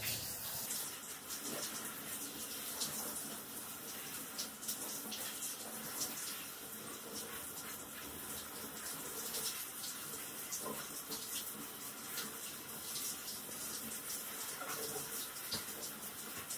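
Handheld shower head running, its spray rinsing a dog's coat and splashing against a glass shower screen: a steady hiss of water with many small splashes in it.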